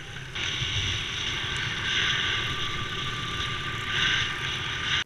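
Motorbike on the move: a steady engine drone under a loud, even rushing noise from the ride, which steps up about half a second in.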